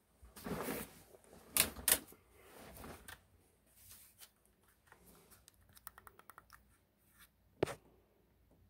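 Scattered clicks and knocks of objects being handled, with two sharp clicks about two seconds in, a quick run of light clicks around six seconds in, and one sharp click near the end.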